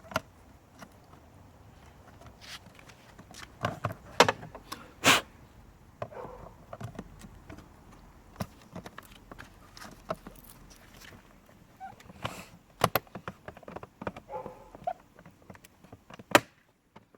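Scattered plastic knocks and clicks from handling the filter container of a Bridge Raptor robotic pool cleaner and fitting it back into the unit after it has been emptied of leaves. The loudest knocks come about four to five seconds in, again around twelve seconds in, and once more near the end.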